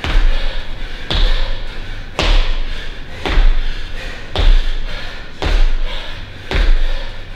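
Feet landing on a gym floor in repeated split-stance jumps: a heavy thud about once a second, seven landings in all.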